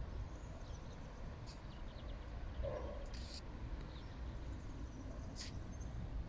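Outdoor ambience: a steady low rumble with faint, scattered bird chirps and a brief distant call about two and a half seconds in.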